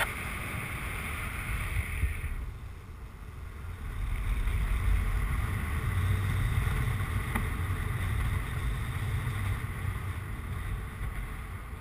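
Wind buffeting the microphone in paraglider flight: a steady low rumbling rush that dips briefly about three seconds in, then comes back stronger.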